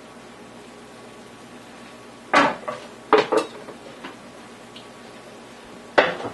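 Metal cooking utensil clanking against frying pans: a clatter about two seconds in, two quick knocks a second later, and another near the end, over a faint steady hiss.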